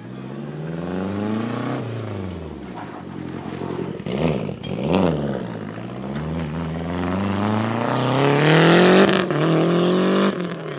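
Rally car engine revving hard, its pitch climbing and falling again and again through gear changes and quick blips of the throttle. It grows louder to a peak about a second before the end, then drops away suddenly.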